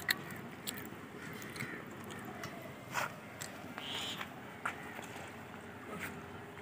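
Faint clicks and rustles of people eating roti and curry by hand from a shared plate, with a short high chirp about four seconds in.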